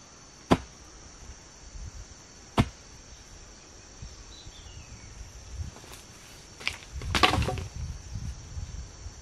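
Two sharp strikes of a tool on wood about two seconds apart, then a longer rustling crackle near the end, over the steady buzz of insects.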